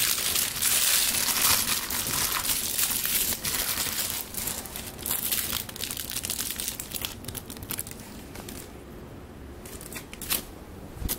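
Clear plastic cereal bag being crinkled and crumpled in a hand: dense, loud crackling for the first few seconds, thinning to scattered crackles and then a couple of short clicks near the end.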